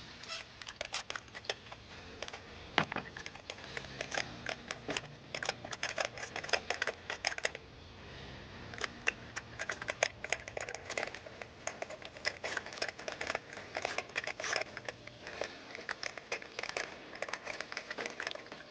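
Socket wrench ratchet clicking in rapid runs as it unscrews a spark plug through a deep socket and extensions, with a short pause about eight seconds in.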